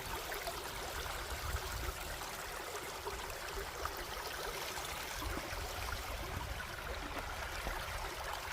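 A small mountain stream running: a steady rush of water over stones.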